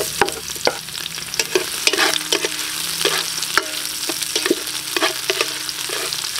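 Garlic, ginger and sliced red onion sizzling in hot cooking oil in a metal pot, with a steady hiss. A spatula scrapes and clacks against the pot in frequent, irregular sharp clicks as the aromatics are stirred.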